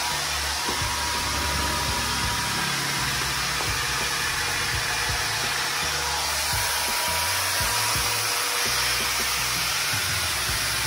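A steady rushing hiss with background music underneath.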